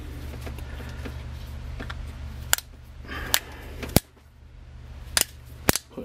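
Sharp clicks of hard plastic as the housing and strain-relief parts of a Neutrik powerCON TRUE1 cable connector are handled and pushed together: about five clicks spread through the second half, the loudest about four seconds in. A low steady hum runs underneath and drops away at that loudest click.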